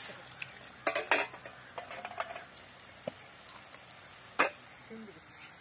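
Scattered clinks and crunches of people eating murukku from steel plates and tumblers, with one sharp clink about four and a half seconds in.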